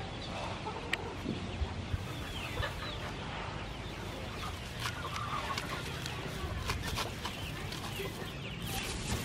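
Chickens clucking, with the rustle of lemongrass leaves being handled and a few sharp crackles near the end.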